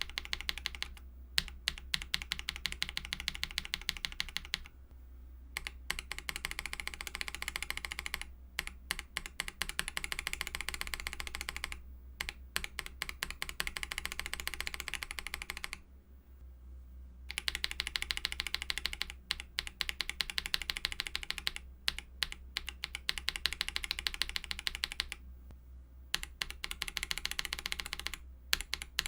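Fast typing on a mechanical keyboard fitted with lubed Akko CS switches: dense runs of keystrokes broken by short pauses every few seconds, over a faint steady low hum.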